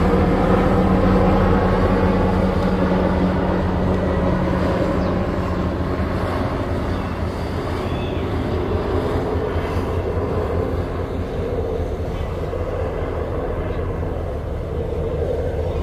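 Motorboat engine running, a steady low drone with a few pitched tones, slowly fading as the boat moves away.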